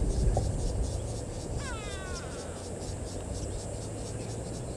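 Wild outdoor ambience at a waterhole: insects chirring in a steady, rapid, even pulse, with a short bird call of several quick rising notes about two seconds in, over a low rumble.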